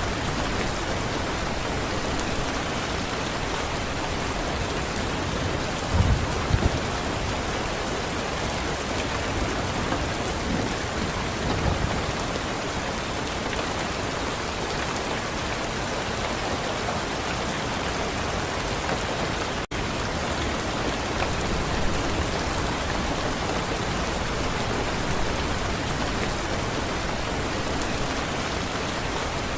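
Steady heavy rainfall, an even hiss of drops on surfaces. A few short low thumps come about six seconds in and again around eleven seconds. The sound cuts out for an instant just before twenty seconds.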